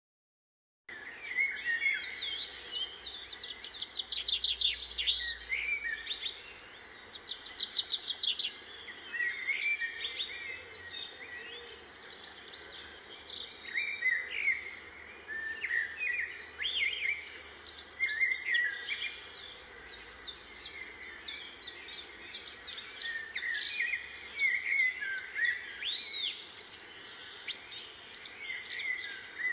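Outdoor birdsong: several birds chirping and calling in short, repeated notes, with a fast trill between about three and five seconds in. It starts about a second in, after a moment of silence.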